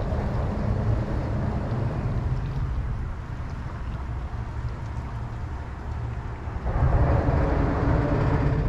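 Steady outdoor rumble of road traffic crossing the bridge, mixed with wind on the microphone, swelling louder about seven seconds in as a vehicle passes.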